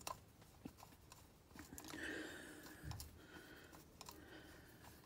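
Faint, scattered small clicks and taps of a screwdriver turning screws into the engine casing, each screw being snugged down lightly.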